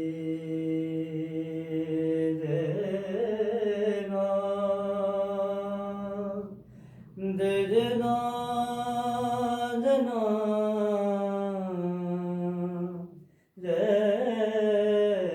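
Wordless sung vocal melody in a raag style: three long, slow phrases of held notes that bend and glide, with short breaths between them about six and a half and thirteen and a half seconds in.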